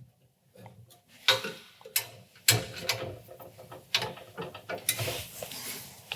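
Clicks, knocks and a sliding rattle from the metal frame and runners of a tall-unit larder pullout being adjusted and moved, with several sharp clicks spread through.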